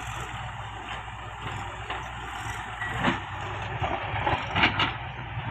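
Farm tractor's diesel engine running steadily as it pulls a trailer loaded with soil over rough ground. A sharp knock about three seconds in and a few louder knocks and rattles near the end.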